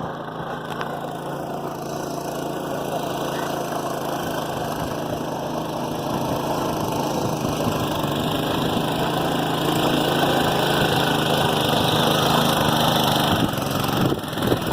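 Small engine of a two-wheel-drive (2x2) motorcycle running steadily in heavy mud, growing gradually louder as the bike comes closer, with a brief drop near the end.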